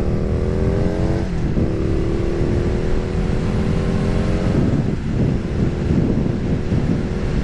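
Harley-Davidson Street Rod's 750 cc V-twin accelerating on the road, its pitch climbing, dropping at an upshift about a second in, then climbing again. Wind rushes over the rider's microphone underneath.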